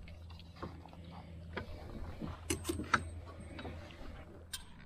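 Light clicks and ticks of hands handling a small freshly caught fish and the fishing tackle in a boat, the sharpest near three seconds in, over a low steady hum that stops about four seconds in.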